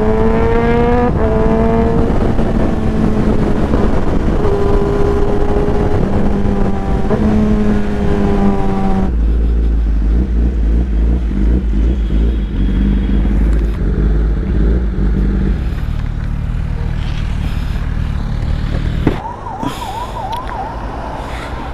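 Kawasaki ZX-10RR inline-four with its exhaust baffle removed, running fully open while riding: the engine pulls with its pitch climbing and stepping down a few times under heavy wind rush. About halfway through the wind turns to a low rumble and the engine settles lower and steadier as the bike slows. Near the end a fast wavering siren-like tone sounds.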